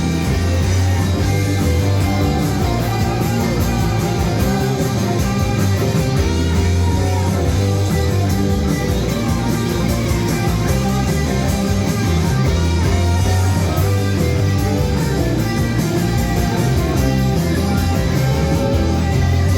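Loud rock music with guitar playing throughout, with a heavy bass line.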